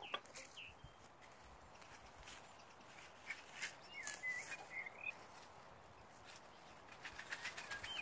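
Plastic bag crinkling in short spells as hands open it and squeeze marinated meat out of it, with a bird's short warbling chirp about halfway through.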